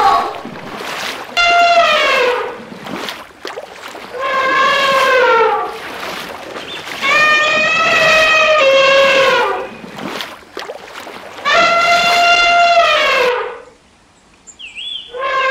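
Elephant trumpeting: a series of about five loud horn-like calls, each one to three seconds long, each falling in pitch at its end.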